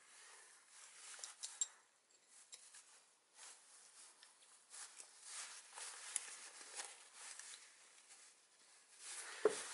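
Faint, scattered clicks and scrapes of a small screwdriver working metal and plastic parts into a Shimano hydraulic brake lever, with one sharper click near the end.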